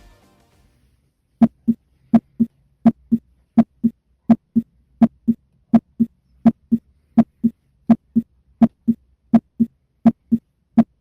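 Heart sounds at the tricuspid auscultation point: a regular lub-dub, each beat a pair of short sounds close together, repeating about every 0.7 seconds (roughly 80 beats a minute). They start about a second and a half in.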